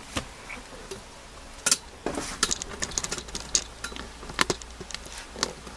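Irregular small clicks and knocks of a laptop and its power adapter plug being handled, a few sharper ones in a cluster a couple of seconds in.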